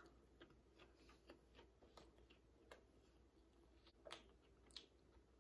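Near silence with faint, irregular soft clicks: the quiet mouth sounds of someone chewing a chicken taco.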